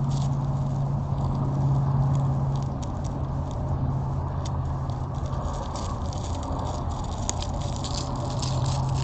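Trail camera audio: a steady low electrical hum under a hiss, with many small irregular clicks and crackles throughout, thickest in the second half, such as an animal moving in leaf litter or feeding at the bait.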